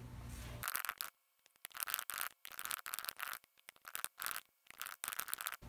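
Computer keyboard typing, sped up into rapid clusters of clicks broken by short silent gaps. A brief low room hum comes just before it.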